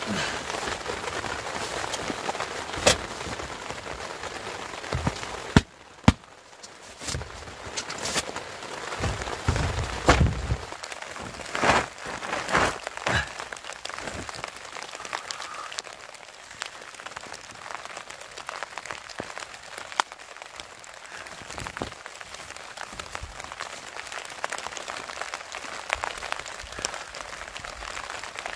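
Nylon tent fabric and gear rustling as someone moves and handles things inside a small dome tent: a steady hiss scattered with short sharp clicks and taps, and two loud knocks in the first six seconds.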